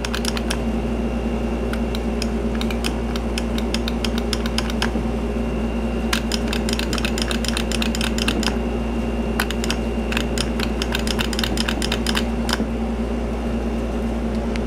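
Bursts of rapid clicking from an elevator call button being pressed and handled, over a steady electrical hum.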